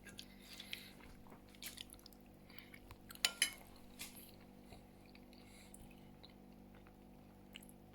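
A person eating quietly: soft chewing with a few faint clicks of a utensil on a dish, the loudest a little over three seconds in, over a faint steady hum.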